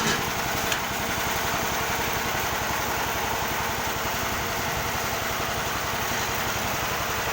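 Engine of a sawmill machine running steadily with an even pulsing beat, with one short click under a second in.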